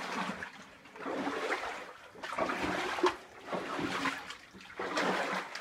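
A person wading through water in a flooded mine passage: a slosh and surge of water with each stride, about one a second.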